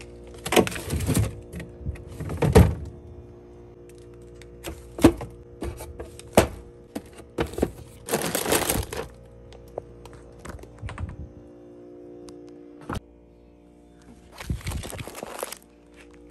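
Grocery packages handled and set into a freezer: plastic wrappers crinkling in short bursts, with several knocks and thunks as items are put down, the loudest bursts at the start and around the middle. Soft background music plays throughout.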